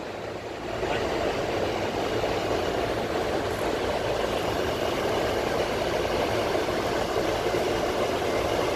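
Steady rushing cockpit noise of a Boeing 747-400 climbing after takeoff, a little quieter for the first second and then even throughout.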